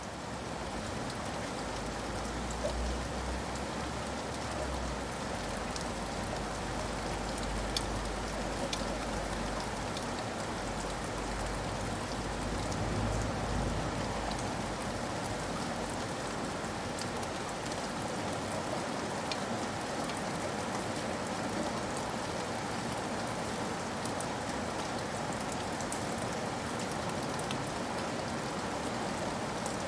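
Steady heavy rain falling, with a low rumble of distant thunder through the first half that dies away about halfway through.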